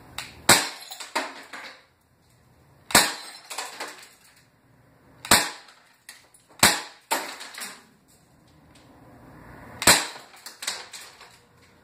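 Crosman C11 .177 non-blowback CO2 BB pistol firing five shots a few seconds apart. Each is a sharp crack followed within a second by a few fainter knocks and clinks as the BBs strike the glass bottles.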